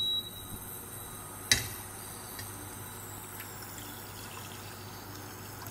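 Water pouring from a steel saucepan into a steel kadhai in a steady stream, with one sharp clink about one and a half seconds in.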